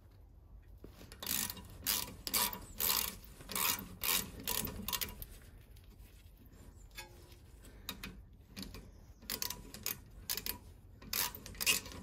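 Socket ratchet clicking in quick bursts as it works a 13 mm brake caliper bolt loose, with a quieter pause in the middle before the clicking starts again.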